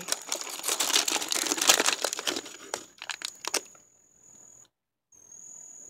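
Thin plastic snack packaging crinkling and crackling as it is handled: a plastic tray of frozen flavored ice cubes pulled out of a freezer. Dense crackles that stop about three and a half seconds in.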